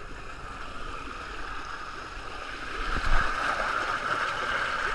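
Water rushing down a water slide flume as the rider sets off and slides through it, heard muffled through a GoPro's waterproof housing; the rush grows louder about three seconds in as the ride picks up speed.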